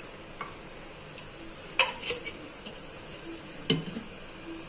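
Metal kitchenware clinking and knocking a few times, with the two loudest hits just under two seconds in and near the end.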